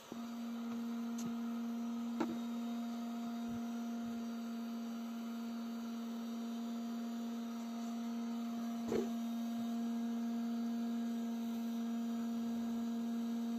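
Steady electrical hum with a few overtones, with a faint click about two seconds in and another near the middle.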